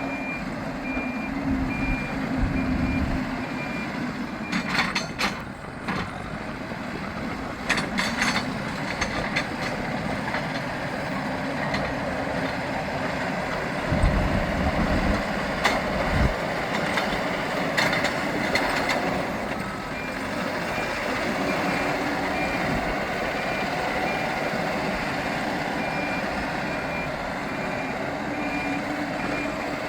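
Hidromek 102S Supra backhoe loader's diesel engine running and working under load, with its reversing alarm beeping at an even pace for the first several seconds and again through the last third. Several sharp knocks come in between.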